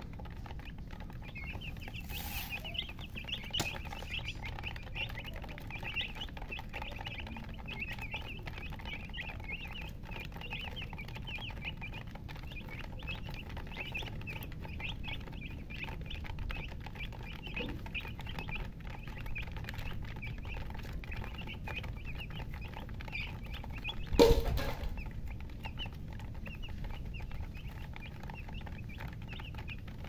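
A flock of baby chicks peeping continuously, many short high-pitched cheeps overlapping. About three-quarters of the way through comes a single loud thump.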